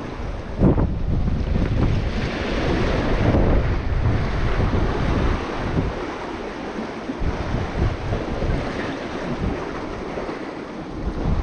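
Wind buffeting the microphone in gusts over the wash of waves on the shore, with one brief thump under a second in.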